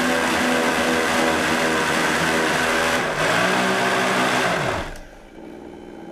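Vitamix blender motor running at high speed, churning thick hummus as the tamper is pushed down through the lid. About three seconds in, the pitch shifts. Just before the five-second mark the motor spins down with a falling whine and the sound drops away.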